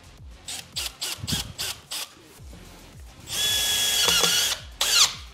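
Drill/driver driving a screw into the edge of a scrap board with no pilot hole: a few clicks as the screw is set, then the motor whirs in a steady run of about a second and a half and a short final burst. Driving the screw this way splits the board's edge.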